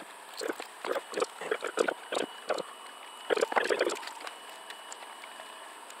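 Irregular crinkling and clicking of LiPo pouch cells and their plastic film being handled and peeled apart by hand, with a denser stretch of crackling a little over three seconds in.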